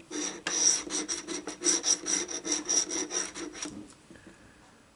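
Scratch-off lottery ticket being scraped in quick, repeated strokes for about three and a half seconds, then the scraping stops.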